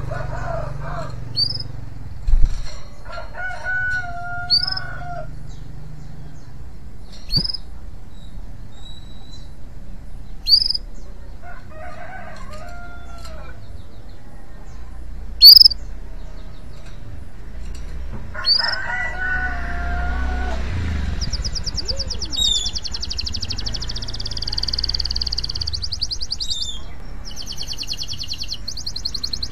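Male canary in breeding condition singing: sharp single high chirps about every three seconds, the loudest just past the middle, then a fast rolling trill from about two-thirds of the way in. A rooster crows four times in the background over a low rumble of street traffic.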